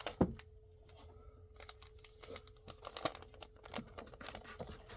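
Rustling, crinkling and light taps of comic books and their packaging being handled and set down, with many short clicks scattered through and a faint steady hum underneath.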